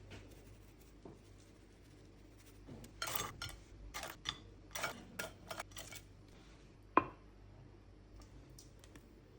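Kitchen utensils and dishes handled: a run of short scrapes and clatters, then one sharp clink near the end.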